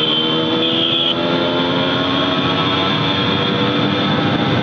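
Motorcycle engine running at speed as the bike is ridden fast, a steady engine note over rushing wind and road noise.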